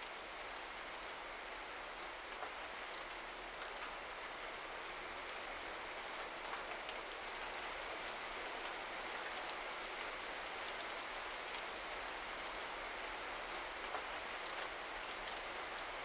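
Steady rain falling, an even hiss with faint scattered drop ticks.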